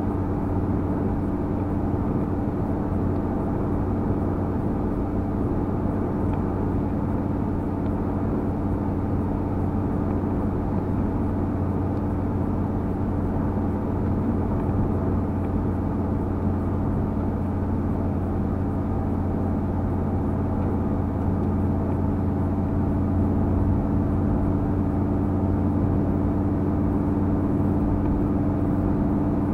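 Steady engine and tyre noise inside a car cruising at speed on a motorway, with a constant low hum.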